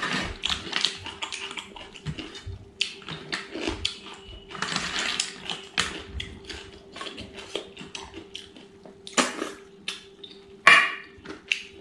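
Close-up eating sounds: fingers mixing rice and snail curry on a steel plate, with snail shells clicking against the plate and each other. Louder wet slurps about nine and eleven seconds in, as the snails are eaten from the hand.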